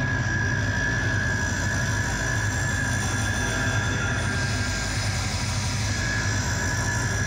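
Electronic soundtrack of an architectural projection-mapping show: a steady, low drone with a sustained high tone held above it, without a beat.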